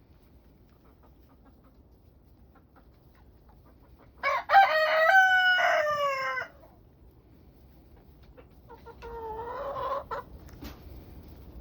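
A rooster crowing once, loud, about four seconds in, in a few broken phrases that drop in pitch at the end. A fainter, wavering crow follows about two seconds later.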